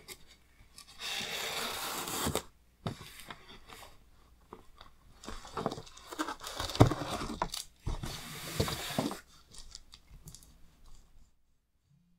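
Plastic shrink-wrap crinkling and cardboard scraping as a large shrink-wrapped hardback book is handled and lifted out of its cardboard box. There are two stretches of rustling, about a second in and again from about five to nine seconds in, with a few knocks.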